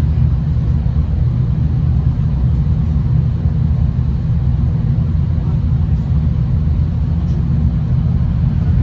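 Steady low rumble of a V/Line diesel passenger train running along the line, heard from inside the carriage.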